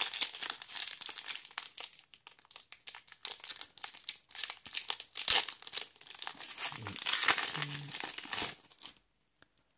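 Foil wrapper of a Panini Donruss Optic trading-card pack being torn open and crinkled by hand, a dense crackling that stops about nine seconds in.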